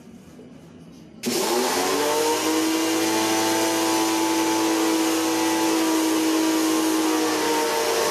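Electric pressure washer starting up about a second in: its motor whines up to a steady pitch over the hiss of the water jet spraying the evaporator fins of a window-type air conditioner.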